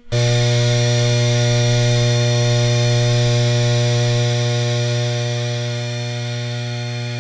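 Steady electrical power hum, given as a gel electrophoresis power supply: a strong low tone with many even overtones above it, sounding buzzy. It cuts out for an instant right at the start, comes straight back, and then slowly grows quieter.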